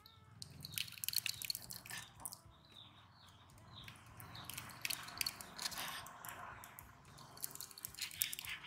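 Small knife slicing through raw chicken breast on a wooden cutting board: wet, squishy cuts with irregular clicks of the blade meeting the board.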